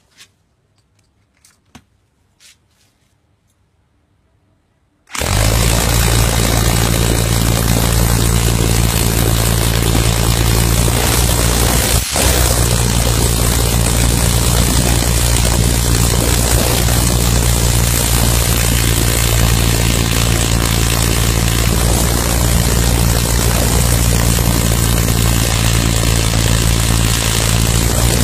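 A few faint clicks, then about five seconds in a loud, steady machine drone starts abruptly, with a low hum under a wide hiss, and runs on unchanged apart from one brief dip about twelve seconds in.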